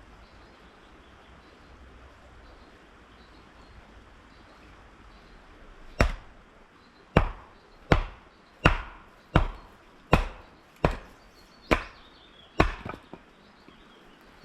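Wood being chopped: a run of nine sharp strikes, a little under a second apart, starting about six seconds in after a stretch of quiet woodland background.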